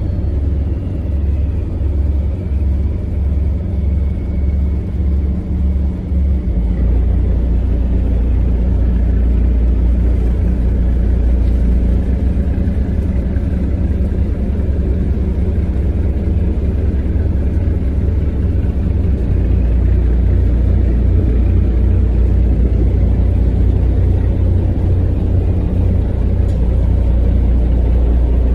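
Sightseeing boat's engine running with a deep, steady low note; for the first six seconds or so the low end pulses unevenly, then it settles into a steady run.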